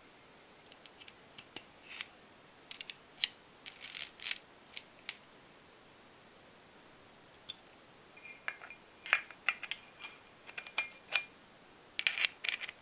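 Small metal engine-model parts clinking and clicking as they are handled and fitted together by hand, some clinks ringing briefly. The clicks come in clusters with a pause of a couple of seconds in the middle, and the densest, loudest cluster comes near the end, as a ball bearing is fitted onto a metal plate.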